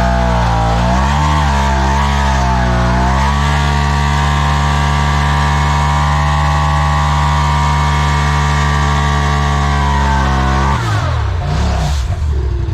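2020 Polaris RZR Turbo S's turbocharged engine revving during a stationary burnout. It climbs unevenly for about three seconds, holds at high revs for about seven seconds, then drops off near the end with one short blip.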